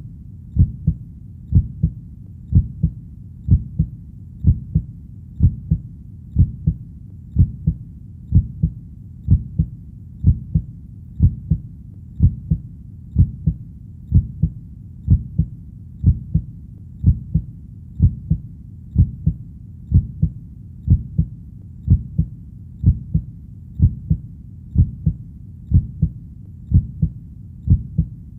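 Steady heartbeat: a low double thump, lub-dub, about once a second in an even rhythm.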